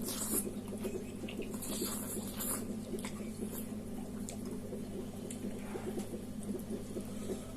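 Wet eating sounds of a person slurping and chewing spicy instant noodles in soup: many small wet clicks, with short slurps at the start and about two seconds in.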